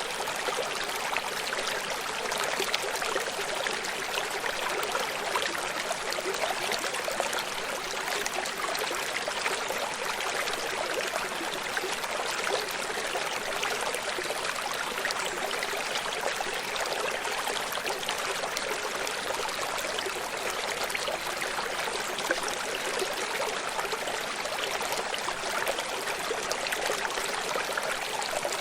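Tropical river water rushing, a steady even noise that does not change.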